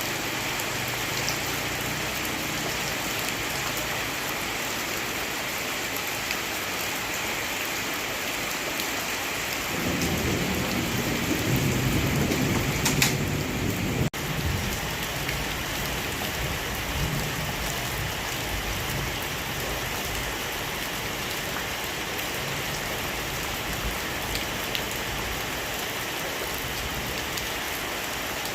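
Heavy rain falling steadily in a thunderstorm. About ten seconds in, a low rumble of thunder builds for several seconds with a sharp crack near its peak, then cuts off suddenly while the rain carries on.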